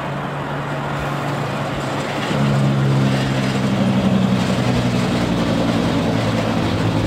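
Car-carrier truck driving past: a low, steady diesel engine drone over tyre and road noise. The engine gets louder about two seconds in and stays strong.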